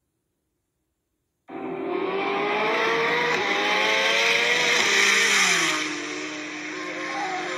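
Drag-racing cars, a high-horsepower Corvette Z06 and a Nissan GT-R, at full throttle. The sound cuts in suddenly after a second and a half of silence, the engine pitch climbs steadily, then falls and settles lower about five seconds in.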